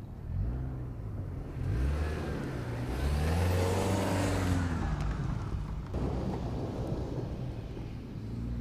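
2024 Toyota Land Cruiser's engine revving up and down as it climbs over dirt mounds, with its tyres churning loose dirt. It is loudest about two to five seconds in, as it passes close, and the sound changes abruptly about six seconds in.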